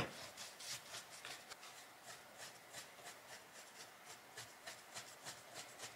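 Paintbrush dry-brushing acrylic paint onto rough plaster: faint, scratchy brush strokes, a few a second.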